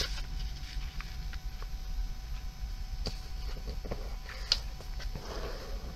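Sheet of printer paper being folded and creased by hand: faint rustling with scattered small clicks.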